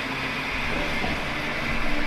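Gould & Eberhardt metal shaper running under power, a steady mechanical clatter with a low rumble that grows a little louder about half a second in.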